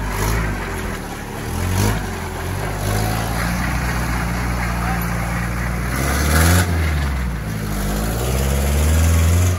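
A lifted four-wheel-drive's engine revving as it drives through muddy water, the pitch rising and falling several times as the throttle is worked, with the tyres splashing through the mud.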